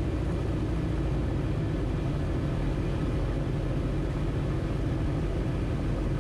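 Piston engine and propeller of a CubCrafters nosewheel X-Cub running steadily at approach power, heard from inside the cockpit as a constant low drone with airflow noise.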